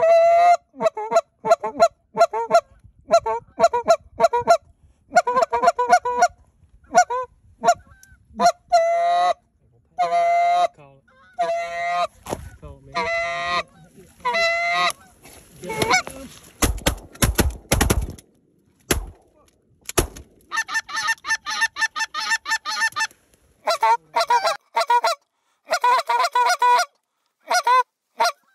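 Loud Canada goose honking and clucking in rapid runs of short, pitched notes. A few low thumps break it briefly around the middle.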